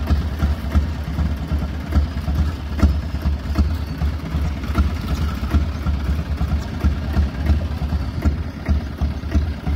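Tractor engine running steadily with a low, pulsing throb as the tractor, fitted with a post-hole digger auger, drives across the yard.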